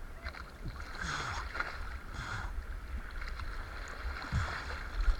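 Water splashing and sloshing close to the microphone in several short bursts, over a steady low wind rumble on the microphone.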